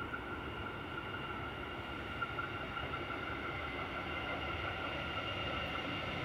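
Alstom X'Trapolis 100 electric train running: a steady rumble with high, even whining tones from its electrics, growing slightly louder toward the end.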